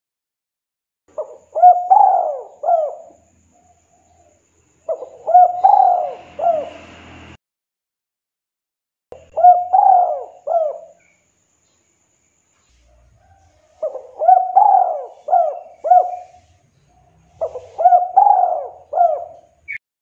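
Spotted dove cooing its 'kuk 2' call: five phrases of three or four short falling coo notes each, a few seconds apart.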